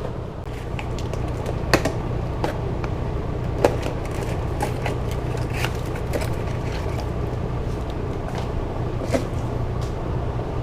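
Scattered clicks and crackles of packaging and plastic parts being handled, over a steady low hum.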